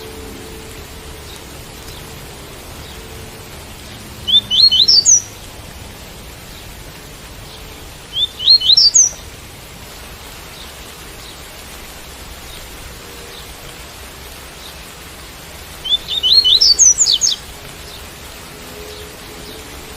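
Double-collared seedeater (coleiro tui-tui) singing three short phrases of quick rising notes, each about a second long, over a steady hiss of rain.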